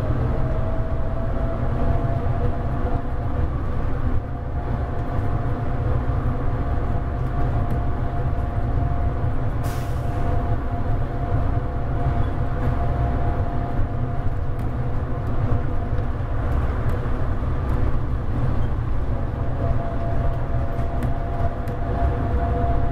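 SFO AirTrain automated people-mover car running along its elevated guideway, heard from inside the car: a steady low rumble with a steady whine from the drive, and a short hiss about ten seconds in.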